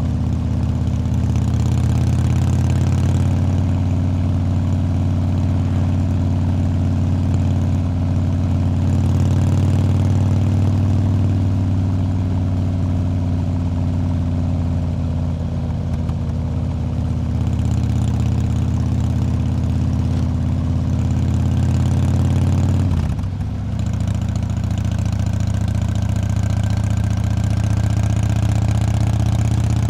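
Motorcycle engine running steadily while riding at road speed. About three-quarters of the way through it briefly drops in pitch and loudness, like a gear change or easing off the throttle, then picks up again.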